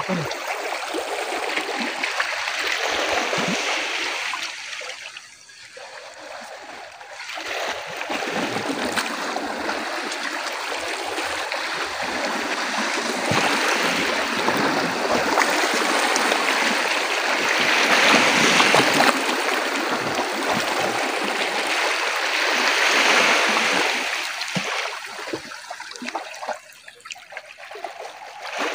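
Small sea waves washing and splashing against shoreline rocks, swelling and easing, with quieter lulls about five seconds in and again near the end.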